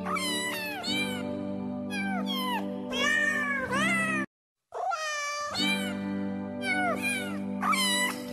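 Cat meowing over and over, a couple of calls a second, each call bending down in pitch, over background music with a steady held chord. The whole track drops out for about half a second a little after four seconds in.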